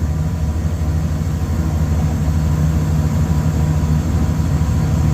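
Trane rooftop packaged air conditioner running, its inverter-driven blower motor turning at a steady set speed: a steady low hum with a faint steady high tone above it.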